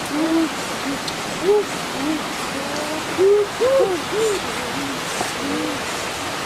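Many short hooting calls, each rising and then falling in pitch, come in overlapping runs at irregular intervals over the steady rush of a forest stream and small waterfall.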